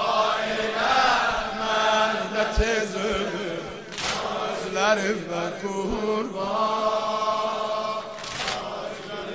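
Male voice chanting a noha, a Shia mourning lament, in a long wavering melodic line, with a few sharp slaps.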